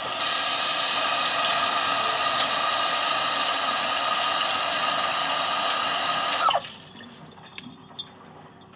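Kitchen tap running in a steady rush, then turned off about six and a half seconds in, with a brief change in pitch as the valve closes.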